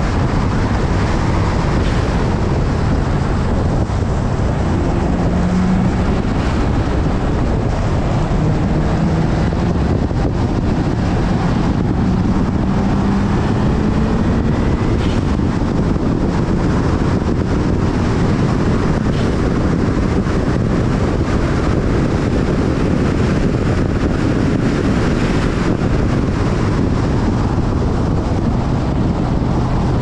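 Heavy wind noise buffeting the car-mounted camera microphone at highway speed, loud and steady. The car's engine note rises and falls faintly beneath it.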